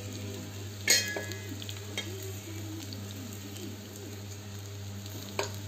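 Chicken seekh kebabs shallow-frying in oil in a nonstick pan with a faint sizzle over a steady low hum. A sharp metallic clink that rings briefly comes about a second in, with smaller clicks near two seconds and near the end.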